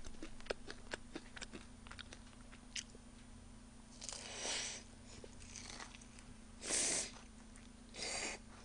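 Close-miked mouth sounds of eating noodles: small wet chewing clicks, then four short hissing slurps over the last few seconds.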